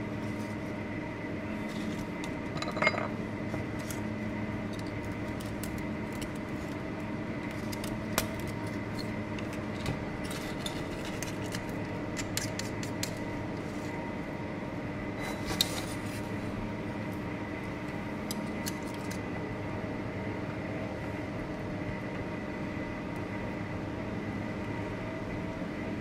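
Scattered light clinks and scrapes of oyster shells, an oyster knife and metal tweezers against ceramic bowls and a steel counter as oysters are shucked, with a few sharper clinks, over a steady hum of kitchen equipment.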